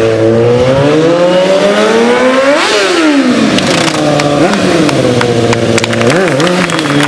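Stunt motorcycle engine running under the rider, revving up to a peak about two and a half seconds in and dropping back, then two short throttle blips near the middle and the end.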